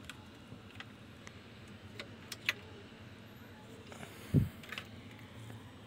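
Sparse light clicks and taps of handling on an electronics workbench, with one dull low thump about four seconds in, over a faint steady hum.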